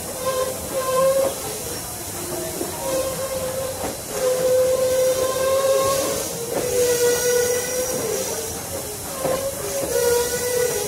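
Steam-hauled passenger train under way behind Norfolk & Western #475: steady hiss with wheels clicking over rail joints, and a wavering whine with overtones that runs on and off throughout.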